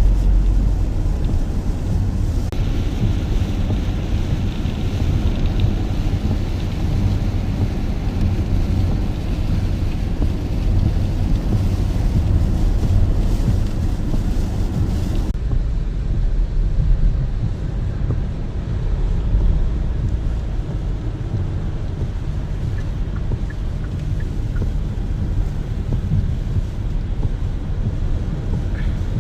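Car on the move, a steady low road rumble heard from inside the cabin; the higher hiss above it drops off suddenly about halfway through.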